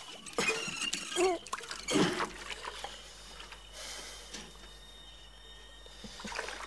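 A metal bucket being hauled up a stone well by a rope over a pulley: water sloshes and drips from the bucket, with knocks and a few short squeaky glides near the start as the rope runs over the pulley.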